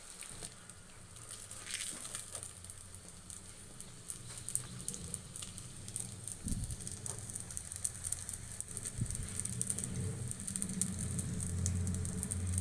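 Shallow oil sizzling and crackling around two stuffed wheat-flour pastries frying on low flame in a non-stick pan. Underneath is a low steady hum that grows louder near the end.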